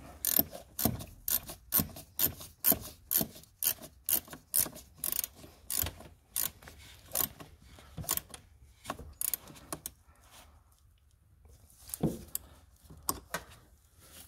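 Ratchet wrench with a 10 mm socket clicking in quick back-and-forth strokes, about two a second, as the nut is run down onto the battery's negative terminal post. The strokes stop about nine and a half seconds in, and a few more come near the end.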